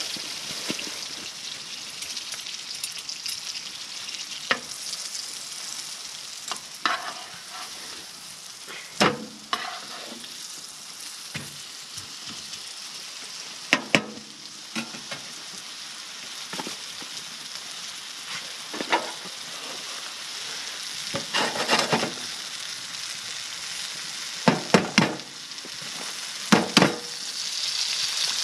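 Plant-based burger patties sizzling in a frying pan, a steady hiss with scattered knocks and clicks. Near the end the sizzle grows louder as an egg is cracked into the hot pan.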